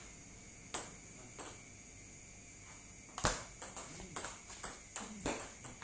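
Table tennis ball clicking off the bats and bouncing on the table. Two single hits come about a second in, then a quick rally starts about three seconds in, with a crisp click every third of a second or so.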